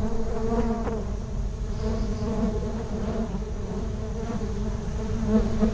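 Bees buzzing in a steady, even drone.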